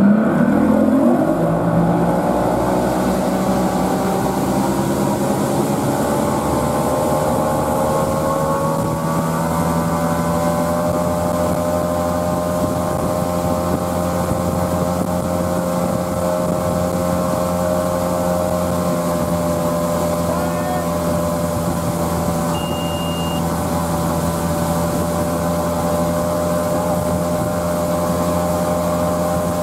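Tow boat's outboard motor revving up hard at the start of a pull, then running at a steady high speed with the rush of the boat's wake.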